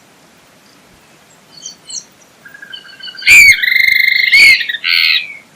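Swainson's flycatcher (maria-irré) calling: a few short soft notes, then a loud drawn-out call lasting about a second, followed by a brief harsh note.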